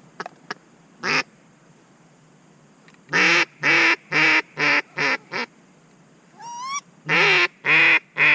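A loud, evenly spaced series of duck quacks: one call about a second in, a run of about five quacks a little past three seconds, a short rising squeal at about six and a half seconds, then more quacks near the end.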